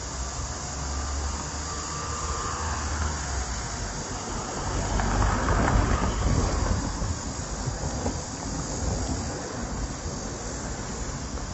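Steady rushing roar of fast-flowing floodwater with a low rumble, swelling briefly about halfway through.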